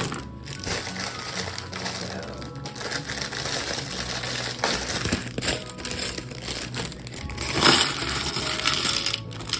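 A plastic bag of Lego bricks crinkling as it is opened and handled, with loose plastic pieces clattering against each other. The loudest rustle comes about three-quarters of the way through.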